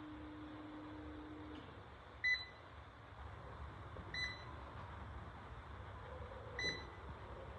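Three short electronic beeps a couple of seconds apart, the first the loudest, from the control console of a spinal decompression traction bed. A low steady hum cuts off about a second and a half in.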